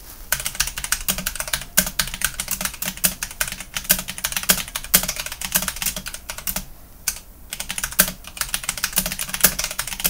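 Typing on a HyperX Alloy FPS RGB mechanical keyboard with Kailh Silver Speed switches, fitted with G.Skill Crystal Crown clear keycaps. It is a dense, fast run of keystrokes with a brief lull about seven seconds in.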